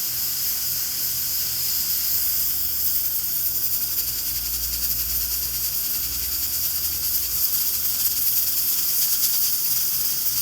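Pressure cooker on the boil, steam escaping through its valve in a steady high-pitched hiss.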